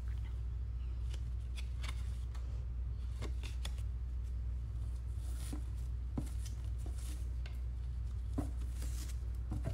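Light rustles, taps and clicks of hands in rubber gloves handling a paper card and the ribbon on a cardboard gift box, over a steady low hum.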